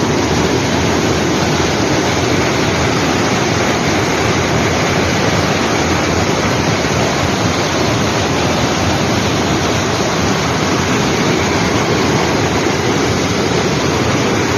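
Floodwater rushing steadily over rocks, a loud even wash of water noise that does not change.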